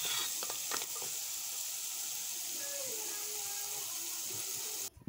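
Dough pieces deep-frying in hot oil, a steady sizzle, with a few light clicks of a metal slotted spatula against the pot in the first second. The sizzle cuts off suddenly near the end.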